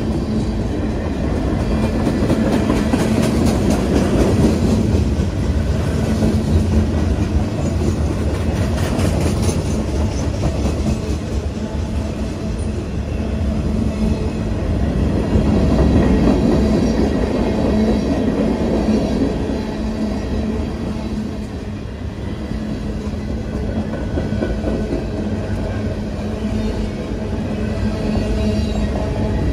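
Freight cars of a Norfolk Southern mixed freight train rolling past: a steady rumble of steel wheels on rail with a clicking rhythm of wheels, swelling in loudness around four and sixteen seconds in.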